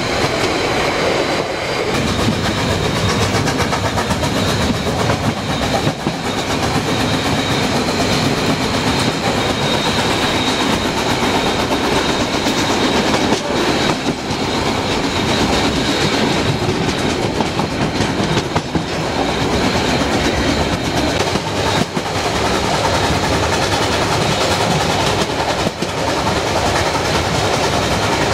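Harz narrow-gauge steam train's coaches running over the rails, heard from an open coach end platform: a steady rumble with the clickety-clack of wheels over rail joints.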